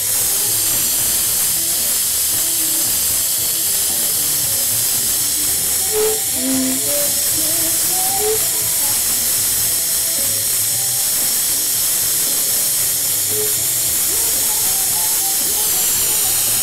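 Hand-held glassworking torch hissing steadily as its flame heats a borosilicate glass joint being fused onto a bong.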